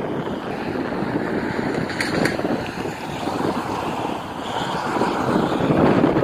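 Wind buffeting an outdoor microphone in gusts, with two faint clicks about two seconds in.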